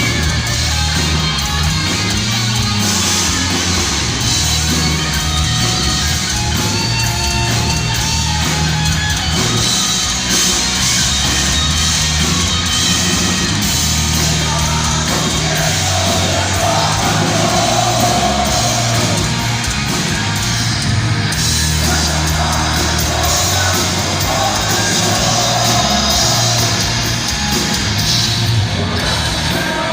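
Heavy metal band playing live in a large hall, with distorted guitars, bass and drums and a voice shouting or singing over them, recorded loud and dense from the audience.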